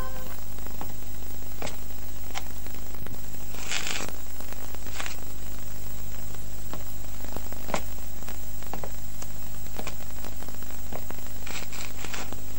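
Steady low electrical hum and hiss with scattered faint clicks and crackles. There is a brief rustle about four seconds in and another near the end.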